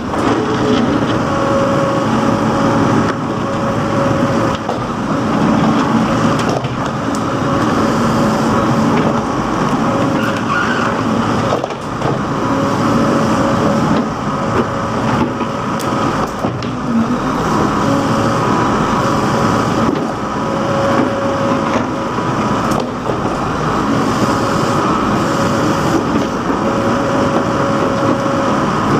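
Case 580 backhoe loader's diesel engine running steadily while it digs, with a whine that comes and goes every few seconds as the hydraulics work.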